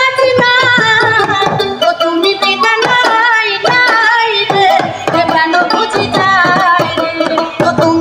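A woman singing a Bengali Baul folk song in an ornamented, wavering voice, accompanied by a plucked dotara and a percussion beat.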